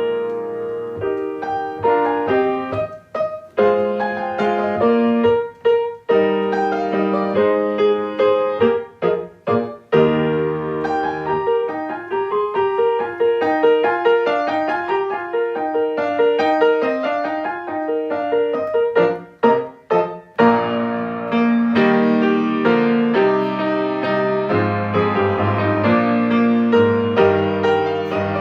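Solo piano playing a slow, melodic prelude with sustained chords, pausing briefly between phrases.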